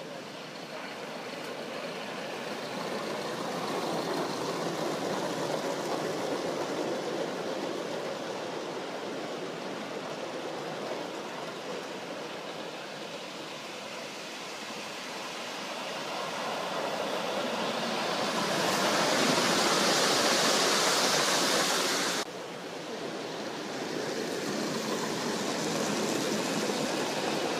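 Gauge one live steam locomotives hissing steadily as they run on the garden track. About two-thirds of the way through the hiss swells to its loudest, then cuts off suddenly.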